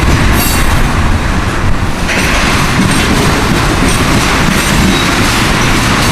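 Loaded ethanol tank cars of a freight train rolling past, their steel wheels clattering over the rail joints and the diamond crossing in a continuous loud rumble. The sound turns brighter and hissier about two seconds in.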